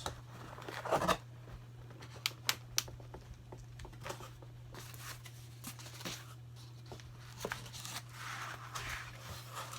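Packaging being handled: cardboard and plastic rustling, with scattered small clicks and knocks, over a steady low hum.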